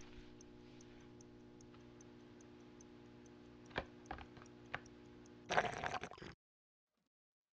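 Clock ticking steadily over a low steady hum, with a few sharp clicks about four seconds in. Near the end comes a brief louder rustling clatter, then the sound cuts off abruptly into silence.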